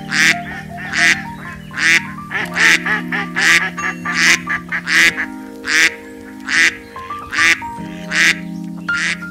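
A duck quacking over and over, about one loud quack every half to three-quarters of a second, over background music with held notes.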